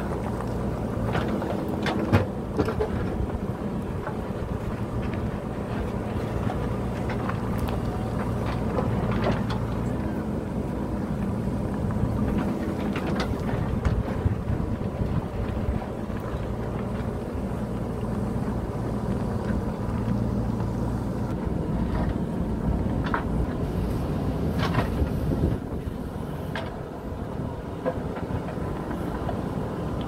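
JCB backhoe loader's diesel engine running while the backhoe arm digs, its pitch rising and falling in spells as the hydraulics take load. Scattered knocks and clacks of the steel bucket striking and scraping rocks and rubble come through, the loudest about two seconds in.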